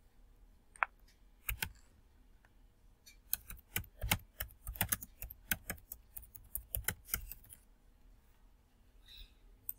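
Typing on a computer keyboard: a quick run of keystrokes that stops about two seconds before the end.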